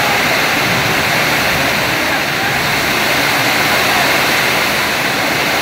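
Heavy downpour making a loud, steady, unbroken noise, heard from indoors as rain beating on a sheet-metal roof.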